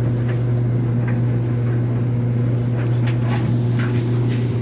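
Samsung clothes dryer running on high heat, its drum motor giving a steady low hum. A few faint brief scrapes near the end.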